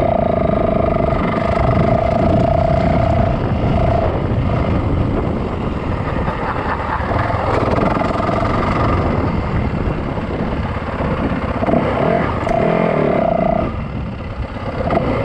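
Yamaha dirt bike engine running while riding, holding a steady note that fades and comes back a few times over a continuous rough rumble.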